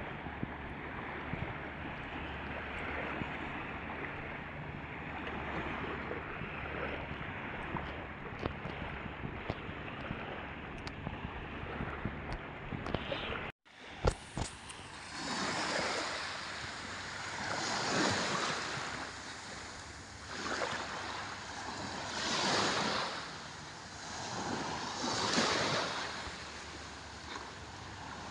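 Small waves washing onto a sandy beach, with a steady rush of surf and wind on the microphone. After a brief dropout and click about halfway, the waves swell and draw back every two to three seconds.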